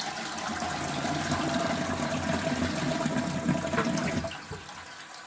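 Toilet flushing through a newly fitted siphon diaphragm, which shows the siphon working again: water rushes from the cistern into the pan, then drops away about four seconds in to the quieter hiss of the cistern refilling.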